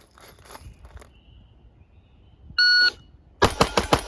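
A shot timer's start beep, a single steady electronic tone of about a third of a second, followed about half a second later by a fast string of pistol shots, several a second, that begins the timed run.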